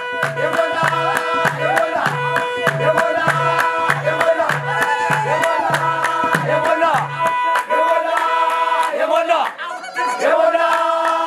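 Guragegna (Gurage-style) Ethiopian wedding song: singing over held keyboard tones with a steady beat and a pulsing bass line, which drops out about seven seconds in.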